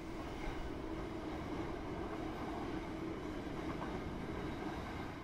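A train running on the line: a steady rumble with a faint low hum through it.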